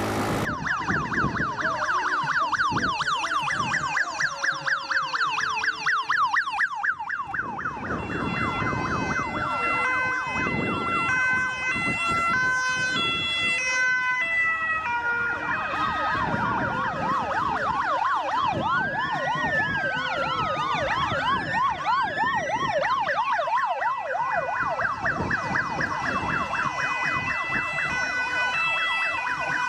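Several emergency-vehicle sirens of a road convoy sounding at once. A fast warbling yelp comes first, a stepped two-tone hi-lo pattern joins it, and near the middle a slower wail rises and falls over them.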